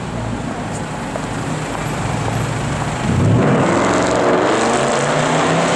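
Mercedes-Benz C63 AMG's 6.2-litre V8 with its catalytic converters removed (decatted), running at low speed, then about three seconds in accelerating hard with a sudden loud rise in the exhaust note, climbing in pitch.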